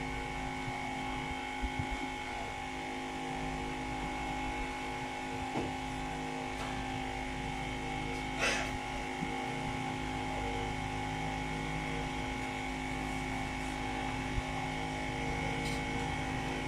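Steady electrical hum of bench equipment, several tones held together, with a few light taps and clicks from tools on the board.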